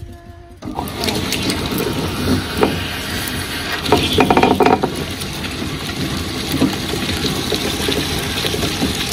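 Tabletop wet grinder switched on about half a second in and running steadily, its two stone rollers turning in the stainless steel drum and grinding soaked spices, onion and coconut with water into masala paste. A brief louder clatter comes about four seconds in.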